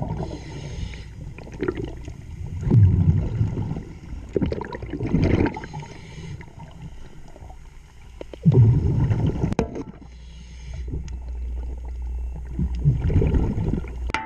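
Scuba diver's exhaled breath bubbling out of the regulator underwater, heard as bursts of low, gurgling bubble rumble every few seconds over a steady low hum. A couple of sharp metallic clicks come about two-thirds of the way through.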